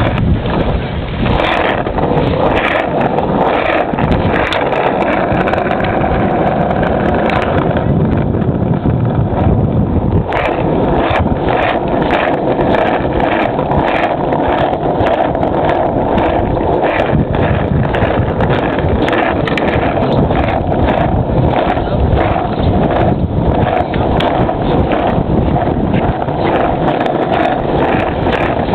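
Skateboard wheels rolling over asphalt: a steady, loud rumble broken by many small irregular clicks and knocks from cracks and grit, with wind buffeting the microphone.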